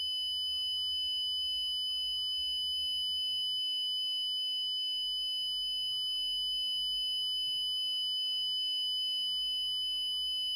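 Synthesized background track for mock Emergency Alert System broadcasts: two loud steady high-pitched tones held without a break, with fainter higher tones above them, over a faint low rumble whose pitch shifts every second or so.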